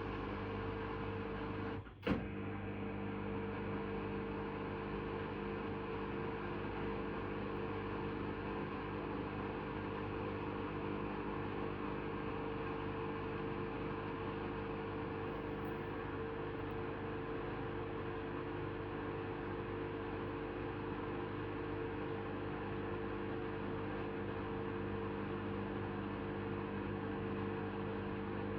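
Hoover Custom Vision washing machine running with a steady humming drone, with a brief dropout and click about two seconds in.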